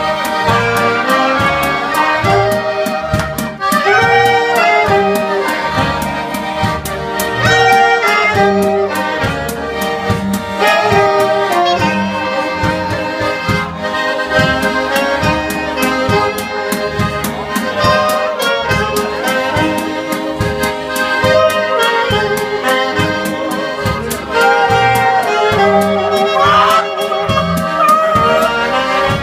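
Live traditional band music led by an accordion, with a bass line pulsing on the beat and a steady percussive tick underneath.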